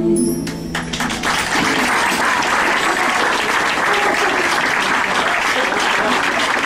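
Audience applauding at the end of a song; the last held sung note and backing chord break off right at the start, and the clapping swells in under a second later and runs on.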